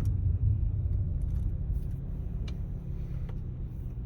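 Steady low rumble of a car's road and engine noise heard from inside the cabin while driving, with a few faint ticks.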